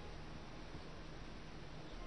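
Low steady background hiss with a faint hum, no distinct events.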